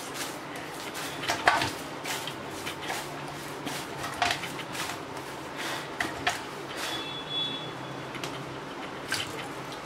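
Pumpkin and rice-flour dough being kneaded by hand in a stainless steel bowl: irregular soft knocks and squishes as the dough is pressed, folded and pushed against the steel.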